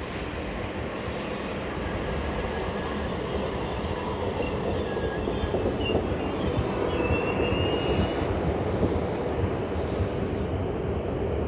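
EP07P electric locomotive and double-deck passenger coaches rolling slowly in at a station as the train arrives. Thin high squeals from the running gear sound over a steady rumble for most of the first eight seconds, and the rumble grows louder as the locomotive draws level.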